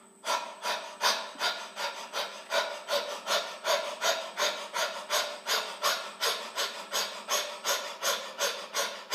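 A man panting rapidly through an open mouth like a dog, about three quick, rasping breaths a second, starting a moment in: a forced panting breathing exercise meant to strengthen the lungs.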